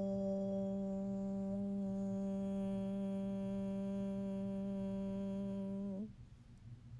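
A voice humming one long, steady low note at a single pitch, cut off abruptly about six seconds in.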